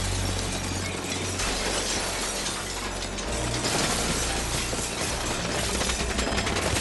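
Very rapid automatic gunfire from a movie action scene, a dense unbroken rattle of shots with bullets striking and shattering things around, over a low rumble.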